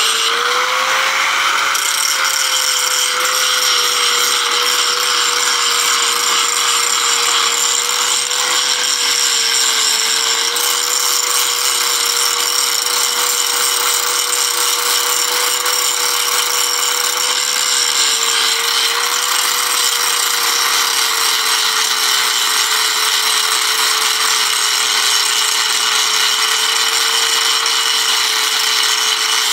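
Angle grinder working steel: a steady motor whine over a continuous hissing grind, its pitch sagging briefly twice.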